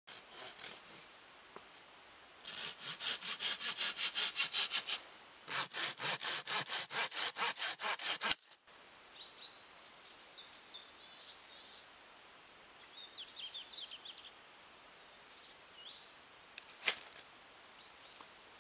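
Hand saw cutting through a branch in fast back-and-forth strokes, about five a second, in two runs with a short pause between. Afterwards come a few faint high bird chirps and one sharp scrape near the end, fitting a fire steel struck over tinder.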